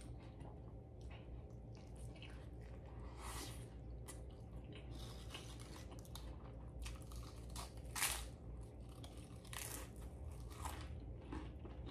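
Close chewing of a mouthful of burger with lettuce and onion, mixed with crisp crunches as ridged potato chips are bitten and chewed. The crunches come irregularly, the loudest about two-thirds of the way through.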